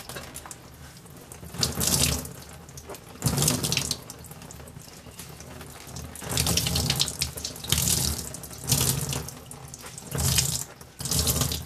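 Tap water running into a utility sink, rising several times into louder splashing as the doll's soft cloth body is turned and squeezed under the stream.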